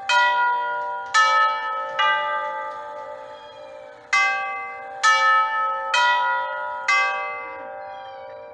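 The tubular chime tubes of a 1916 Herschede Model 228 grandfather clock, struck by the clock's hammers and playing a chime melody. Two four-note phrases, each strike ringing on and overlapping the next, with a short pause between the phrases.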